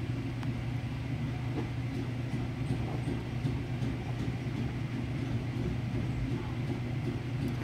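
A steady low hum with even background noise, broken only by a few faint ticks.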